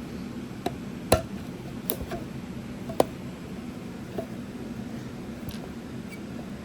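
Speaker parts and tools clicking and knocking as the speaker is taken apart: a handful of short, sharp clicks, the loudest about one and three seconds in, over a steady low hum.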